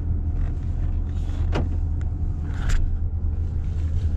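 Steady low road rumble inside a moving car's cabin, with a sharp click about one and a half seconds in and a brief rustle a little later.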